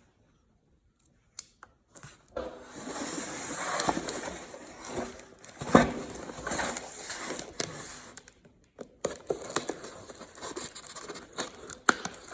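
Cardboard box being opened and unpacked: rustling, scraping and tearing of cardboard with many small clicks and knocks, and one sharp knock about six seconds in.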